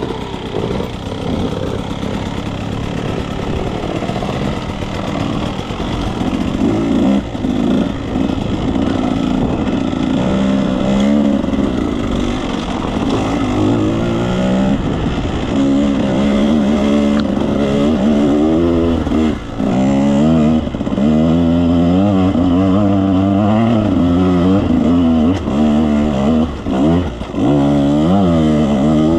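Two-stroke dirt bike engine being ridden hard on a trail, the revs rising and falling over and over every second or two. The pitch swings grow more marked about a third of the way in.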